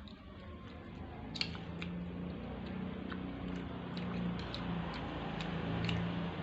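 Close-up eating sounds: chewing, with scattered small sharp clicks of cutlery on a dish. Beneath them a low steady hum grows louder from about a second in.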